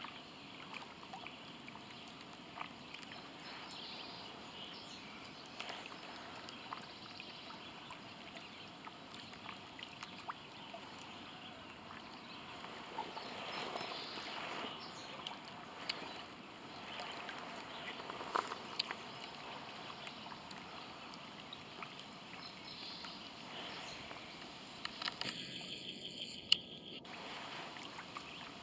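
Small lake waves lapping against a dock and shore: a soft, steady wash with scattered little splashes and ticks. A brief burst of louder noise comes near the end.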